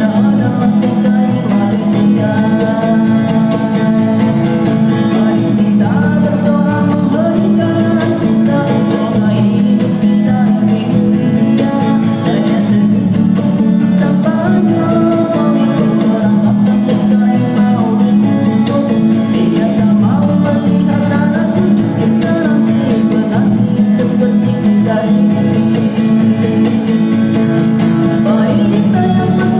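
A man singing a melody with no effects on his voice, accompanied by strummed acoustic guitar.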